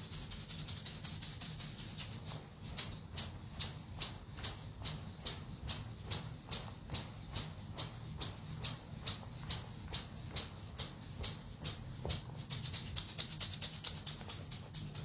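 A hand rattle shaken steadily, first in a dense continuous shimmer, then in even separate shakes about three a second, then dense again near the end.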